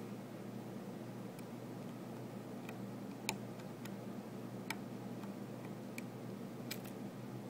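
Scattered small metallic clicks and ticks as a precision screwdriver works the tiny screws in an iPhone 4's metal midframe, the sharpest about three seconds in. A steady low hum runs underneath.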